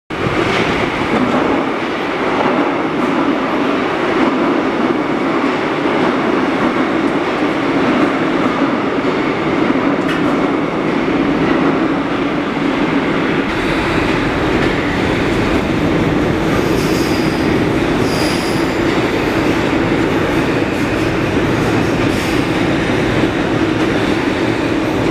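Alstom AS2002 metro trains running through an underground station: a continuous rumble of train movement that deepens from about halfway through as a train runs in on the far track. High-pitched steel wheel squeal comes briefly a little past the middle, and faintly again near the end.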